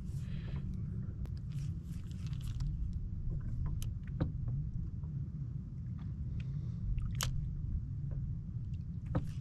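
Steady low rumble of wind and water around a small boat, with a few light clicks and knocks scattered through it.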